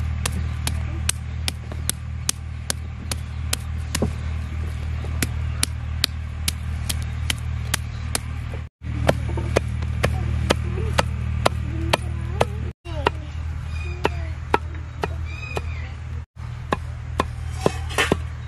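Steel cleaver chopping raw beef on a wooden log chopping block, mincing it with a steady beat of about two chops a second. A steady low hum runs underneath, and the chopping drops out briefly three times.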